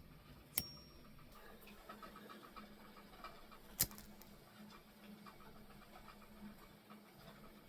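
Two sharp metallic clicks about three seconds apart, the lid of an aluminum block flip-top lighter being snapped, over a faint steady ticking.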